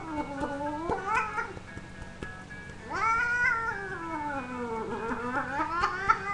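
Domestic cat yowling in long, drawn-out meows whose pitch rises and falls: one call trails off about a second and a half in, and another long one starts about three seconds in.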